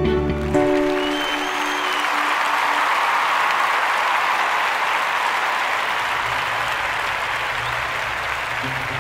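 A crowd applauding and cheering, a steady clatter of many clapping hands. Background music under it fades out in the first few seconds and comes back faintly near the end.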